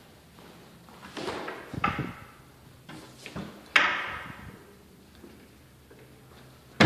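Wood-grain cabinet doors being opened and shut by hand, with knocks and scrapes, a sharp clap as a door shuts a little under four seconds in, and another at the very end.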